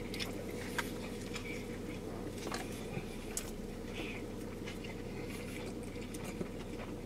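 Two people quietly chewing hamburgers, with faint wet clicks and wrapper-like rustles now and then, over a steady low hum.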